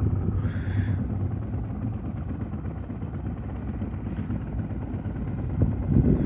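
A small boat's outboard motor running steadily, a low even hum, heard from on board.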